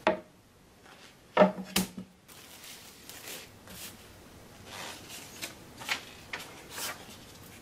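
Clear plastic wrap being pulled from a roll and folded over a maple cutting board: irregular crinkling and rustling of the film, with a couple of knocks about a second and a half in.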